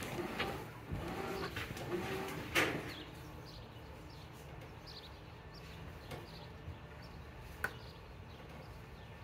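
Bird calls: a low cooing repeated through the first three seconds, then faint high chirps. There is a sharp click about two and a half seconds in and another near the end.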